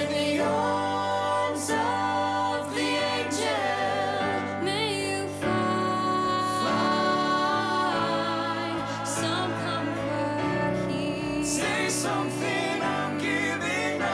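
Slow ballad sung over piano, the voice holding long, wavering notes above sustained chords.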